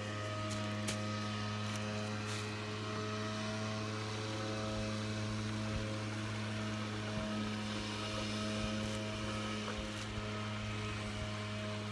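Gasoline poured from a metal safety can through a plastic funnel into a small plastic gas can, with a faint steady splashing. A steady low mechanical hum is the loudest sound throughout.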